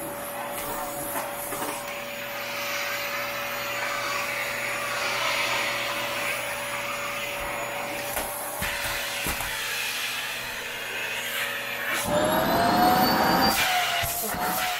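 Vacuum cleaner running with a steady motor whine and rushing air. About twelve seconds in, the whine rises in pitch and the sound gets louder, with a few knocks near the end.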